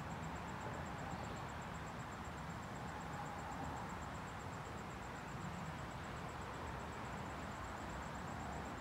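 Faint, steady outdoor background noise, mostly a low rumble, with a faint rapid high-pitched ticking on top.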